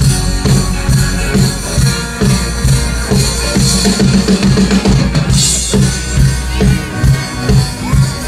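Live rock band playing: a steady drum-kit beat with bass drum and cymbals under electric guitars and bass guitar.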